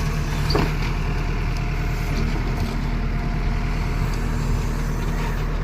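Engine of a heavy earthmoving machine running steadily, with a couple of brief knocks.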